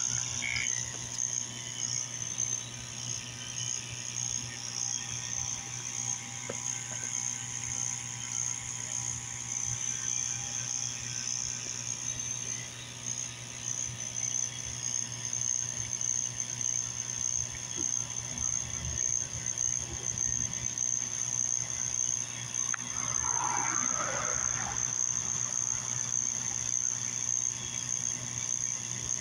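Small 12-volt water pump running steadily with a low hum, driving water round a DIY vortex fountain, with a steady high-pitched tone over it.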